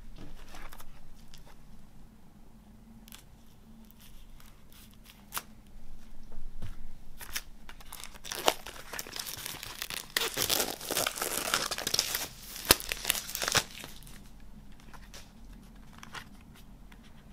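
Plastic shrink wrap being cut open and peeled off a boxed CD set. Scattered light clicks and scrapes come first, then a few seconds of loud crinkling and tearing of the plastic about halfway through, settling to soft handling sounds near the end.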